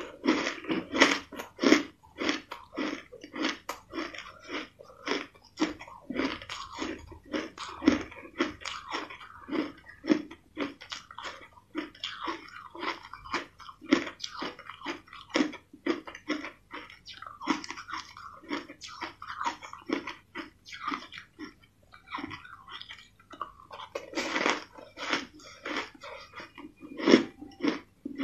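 Crushed ice being chewed: a steady run of crisp crunches, about two or three a second, with louder crunching near the end.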